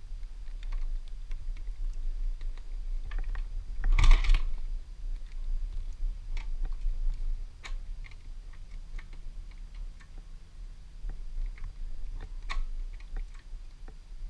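Scattered light clicks and ticks, with one louder rustling knock about four seconds in, over a low rumble.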